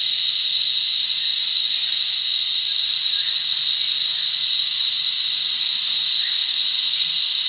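Cicadas calling in a loud, unbroken chorus: one continuous high-pitched drone that rings in the ear.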